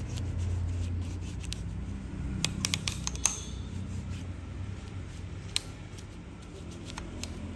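Small sharp metallic clicks and taps of bicycle parts and hand tools being handled, a quick cluster about two and a half seconds in and single clicks later, over a steady low hum.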